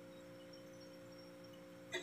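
Quiet steady hum made of a few held tones, with a brief soft clatter at the very end.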